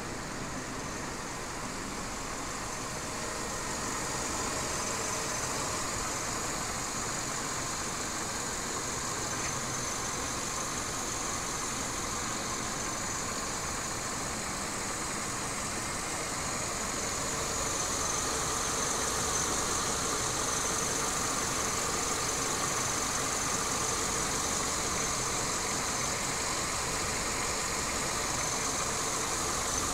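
Citroën C5 (first-generation facelift, 2.0-litre) engine idling steadily, heard from outside at the front grille. It grows a little louder a few seconds in and again about halfway through.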